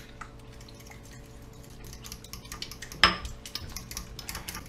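A utensil stirring a creamy sauce in a glass bowl, with soft clicks and scrapes against the glass that come quicker in the second half. About three seconds in there is one sharper knock on the bowl.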